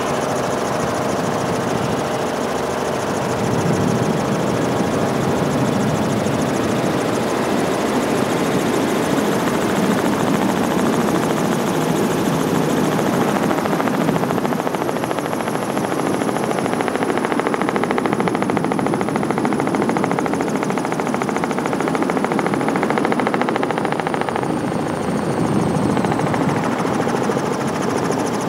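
Helicopter engine and rotor drone heard from aboard the helicopter, loud and steady, with a faint high whine that slowly falls in pitch in the second half.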